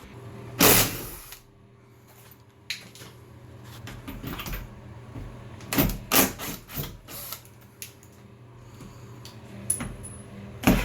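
Knocks, clicks and a brief loud scrape from hand demolition work on a fiberglass tub surround and its drywall, as screws and panels are worked loose. The scrape comes about a second in and is the loudest sound; scattered knocks follow.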